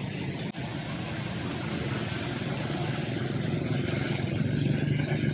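A motor vehicle's engine running steadily close by, a low hum that grows slowly louder.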